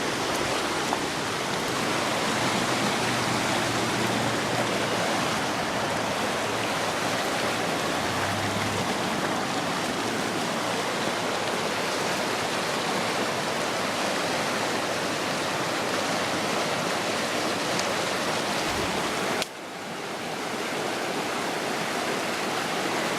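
Muddy floodwater rushing through a normally dry ravine: a steady rush of fast-flowing water. About nineteen seconds in the level drops suddenly and builds back up.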